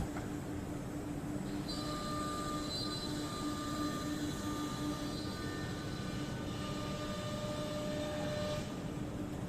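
CNC nesting router running: a steady mechanical hum with several steady whining tones layered over it, more of them joining about two seconds in.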